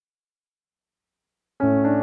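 Silence, then background piano music starts abruptly near the end with a held chord.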